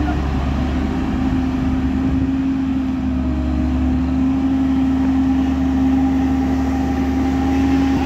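Case road roller's diesel engine running steadily, one even drone with a low rumble beneath, as the roller moves over the freshly laid road surface.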